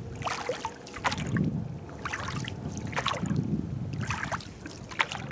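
Oars of an inflatable rowboat dipping and splashing in the water, one stroke about every second.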